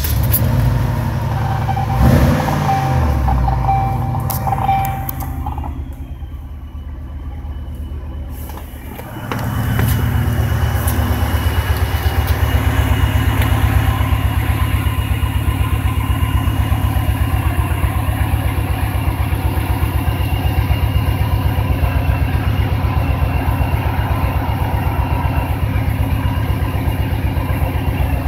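A 1999 Cadillac Seville STS's Northstar V8 idling just after a cold start. For the first few seconds a steady high tone sounds over it; after a quieter stretch the idle comes in louder and close from about ten seconds in, as a steady, even pulse.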